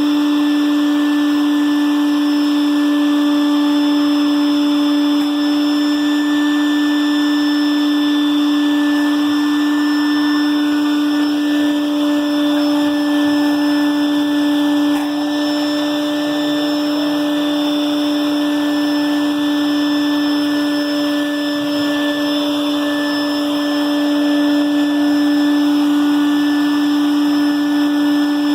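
Mini shop vac motor running steadily with an even whine, used as suction to pull chemical and loosened carbon out of the intake ports during a valve cleaning.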